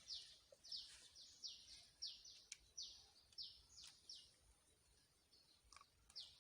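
Quiet outdoor background with a rapid run of short, high-pitched chirps, two to three a second, that fade out about four seconds in and resume near the end; a few faint clicks between them.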